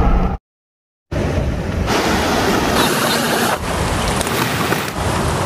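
Steady rush of a fast river running high in spring runoff, an even wash of noise that starts after a brief silence near the start.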